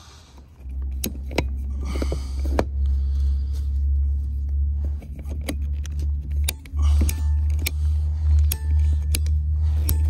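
A hand-held PVC pipe cutter squeezing its blade into a PVC condensate drain pipe, making a series of sharp, irregular clicks. Under them is a loud low rumble that starts about half a second in and cuts out briefly twice.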